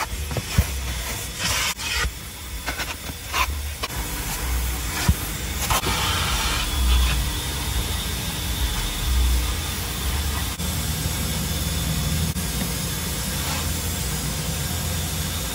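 Car wash vacuum hose running with a steady rushing hiss. Its nozzle knocks and scrapes against the floor carpet several times in the first few seconds.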